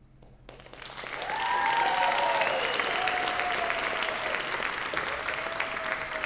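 Theatre audience breaking into applause about half a second in, after a short hush at the song's end. Long cheering calls ring out over the clapping twice.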